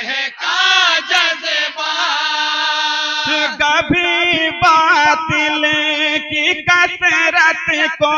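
Group of men chanting an Urdu naat in chorus without instruments, drawing out a long, wavering melodic phrase. From about three and a half seconds in, a steady low held note runs beneath the melody.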